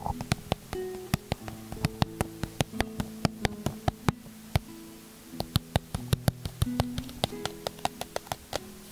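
Fingertips tapping on the lid of a small cardboard box close to the microphone: quick, crisp taps several times a second, thinning out briefly about four seconds in. Soft background music plays underneath.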